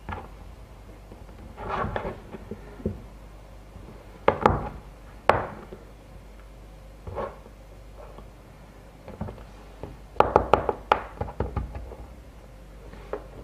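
Handling noise of a surfcasting rig being set on a small plastic mounting support on a wooden table: scattered knocks and taps on the wood, with two sharp clicks about four and five seconds in and a quick cluster of them about ten seconds in.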